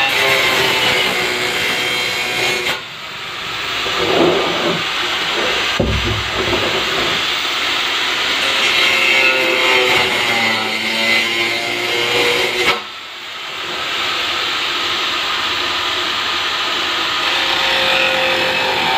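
Electric angle grinder cutting into a blue plastic barrel, its disc running steadily under load. About 3 s and 13 s in the sound drops off suddenly and climbs back within a second or so.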